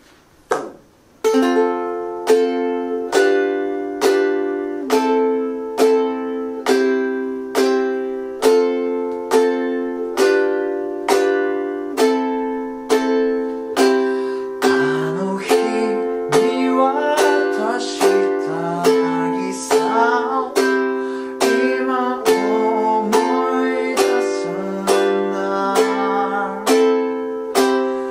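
Ukulele strummed in a steady rhythm through the F–G7–Am–C intro chord progression, starting about a second in after a few short clicks. About halfway through, a low voice joins in, singing along with the chords.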